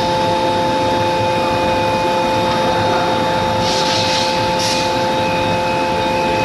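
Steady hum of a CNC hydraulic forging hammer's running hydraulic system and shop machinery, two constant tones over a noisy drone, with short hisses about four seconds in. The hammer does not strike.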